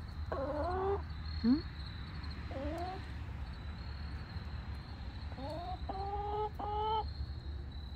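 Backyard hens clucking and calling, about half a dozen separate short calls, several rising in pitch, with a pair of calls close together about six to seven seconds in.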